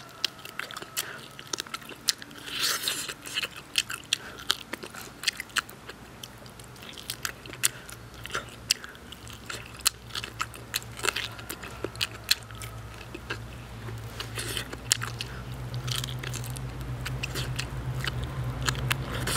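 A person gnawing a braised lamb trotter by hand, biting and chewing its soft, tender skin off the bone, with many short sharp mouth clicks. A low steady hum grows in the background from about a third of the way in.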